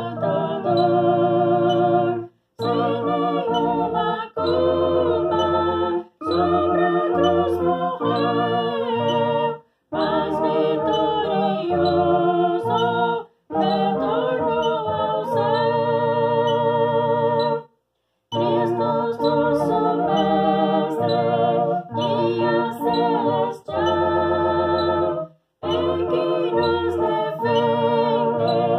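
A woman singing to her own accompaniment on a two-manual electronic home organ, with sustained chords and a bass line. The music comes in phrases of a few seconds, with brief silent breaks between them.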